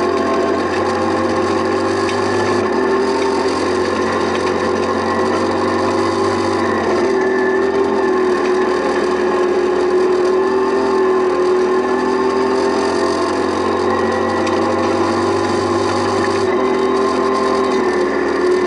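Rally car engine running hard at high revs, heard from inside the stripped cabin, its note holding fairly steady with small rises and falls, over a constant rattle and crunch of gravel under the car.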